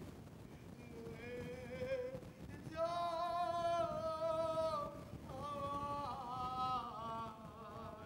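A lone voice singing a slow, drawn-out phrase in a high register, with long held notes that waver in a vibrato; it begins about a second in, holds its loudest note in the middle, then moves on to a second, gliding phrase.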